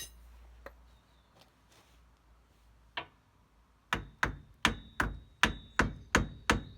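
Hammer blows knocking at a seized rear brake assembly to free it, where rust has stuck it. One blow comes about three seconds in, then eight quick blows at two to three a second, with a thin high ring under the later ones.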